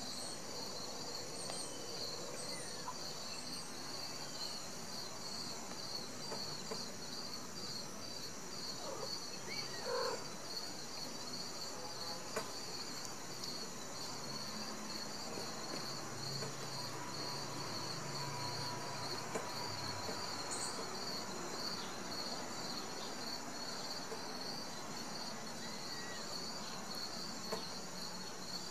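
Crickets chirping steadily in a rapid, regular pulse, with a thin high steady tone beneath.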